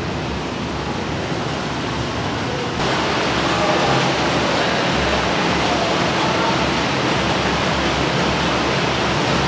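Silk-factory machinery running: a dense, steady din that gets louder about three seconds in.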